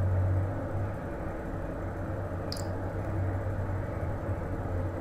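Steady low hum with a soft even hiss, and one short faint click about halfway through.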